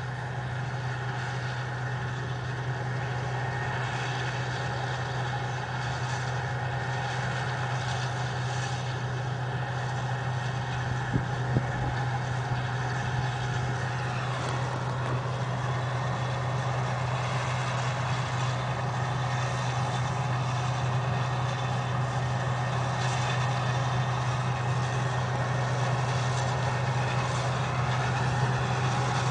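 A vehicle engine running steadily with a constant low hum. There are two short clicks about eleven seconds in and a falling whine about halfway through.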